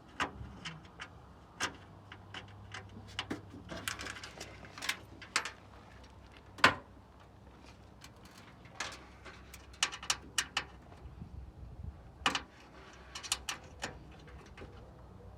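Irregular clicks and knocks of hand tools and parts being handled during work on a truck's front end, with one sharp knock a little before halfway through.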